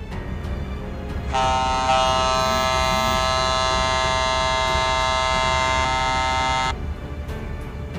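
A ship's horn sounding one long blast of about five seconds, starting a little over a second in, growing louder as a second tone joins shortly after. A steady low rumble runs underneath.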